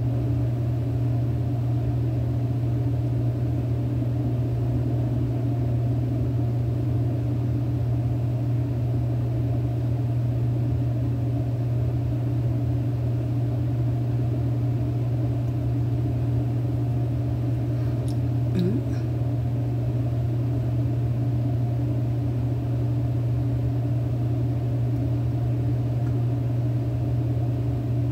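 A steady low hum that does not change, with two faint light clicks about two-thirds of the way through.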